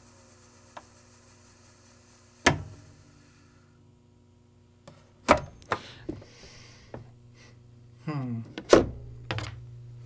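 Early Magnavox laserdisc player's disc spinning down with a faint falling whine, then a sharp click about two and a half seconds in, as the lid lock, which holds the lid shut until the disc has nearly stopped, lets go. The lid clunks open with several knocks, and the disc scrapes and thumps as it is lifted off the spindle near the end.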